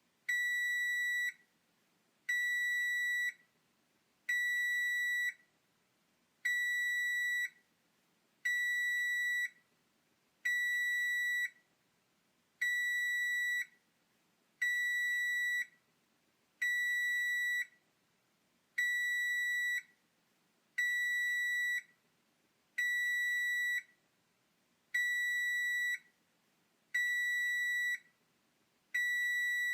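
Oven timer alarm going off: a steady single-pitched beep about a second long, repeating evenly every two seconds, signalling that the set cooking time is up.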